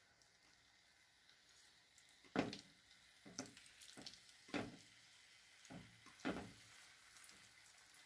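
Raw potato slices being dropped one by one into a non-stick frying pan of oil: about five soft taps and light splashes. The oil is not yet hot, so there is barely any sizzle.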